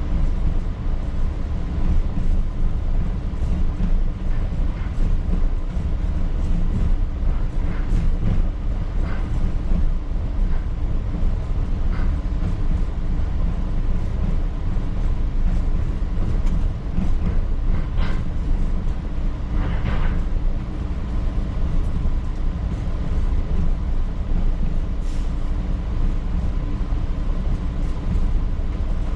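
P865 light rail car running along old track, heard from inside the cab: a steady low rumble of wheels on rail with a faint steady hum, broken by scattered clicks and a couple of short louder rattles about two-thirds of the way through.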